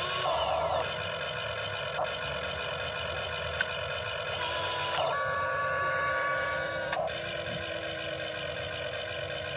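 Electric motors of a Huina 1592 RC excavator whining steadily as the arm lowers, digs into sand and swings back, the pitch sliding in the first second and shifting about halfway through, with a few sharp clicks.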